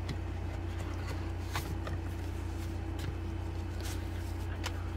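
Paper banknotes and a plastic binder envelope being handled, giving a few faint rustles and taps over a steady low background hum.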